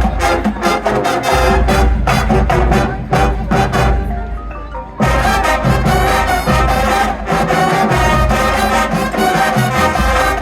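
High school marching band playing: brass over drumline hits and front-ensemble mallets. About halfway through the music thins out briefly, then the full band comes back in loud.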